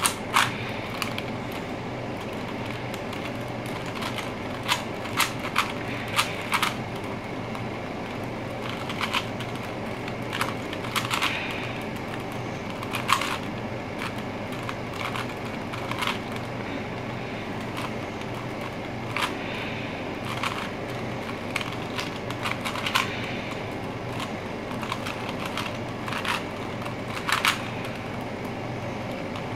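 Plastic clicks and clacks of a 3x3 Rubik's Cube's layers being turned by hand, coming irregularly and sometimes in quick runs, over a steady background hum.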